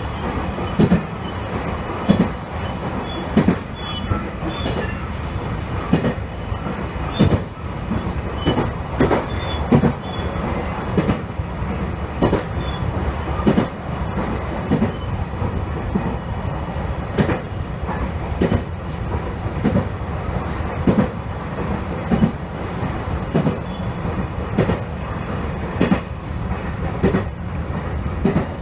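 Electric train running along the line, heard from inside the car: a steady rumble with the wheels clacking over rail joints every second or so.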